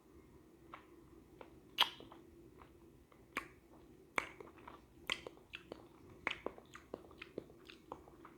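Close-up chewing: a person's mouth biting and chewing, heard as an irregular string of sharp, crisp crunches and clicks, the loudest just under two seconds in.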